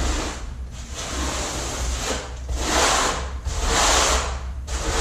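Trowel scraping thin-set mortar as it is spread, in about four long, rising-and-falling strokes of roughly a second each.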